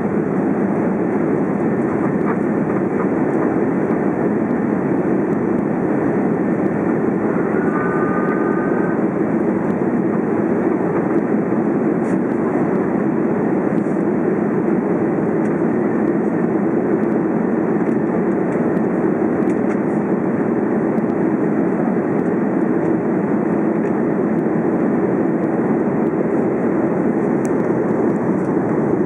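Steady engine and airflow noise inside the cabin of an Airbus A330 climbing after takeoff, deep and even throughout. About eight seconds in, a short chime sounds once over it.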